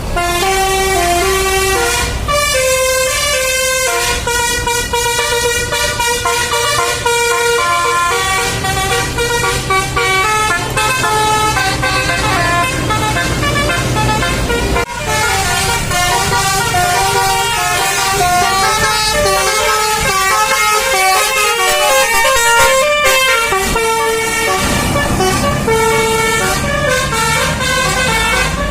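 Bus telolet horn with a basuri-tone module, playing a long melody of stepping notes over the rumble of the bus's engine. The tune breaks off abruptly about halfway through, then another starts.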